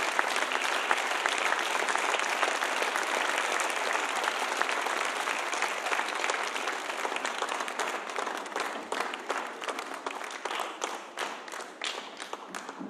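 Theatre audience applauding. The full, dense applause thins out into scattered separate claps and fades away over the second half.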